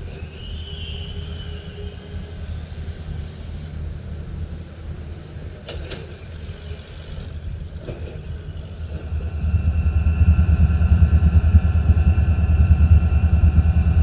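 Steady low engine rumble with a couple of short clanks around the middle. About two-thirds of the way in it grows much louder into a heavy engine drone with several steady held tones.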